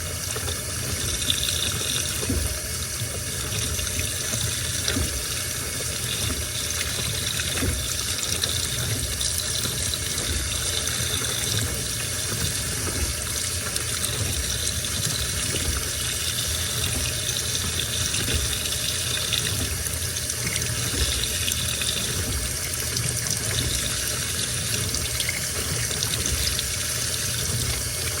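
Washing machine running with water rushing steadily into the drum, like a tap running, early in the wash cycle.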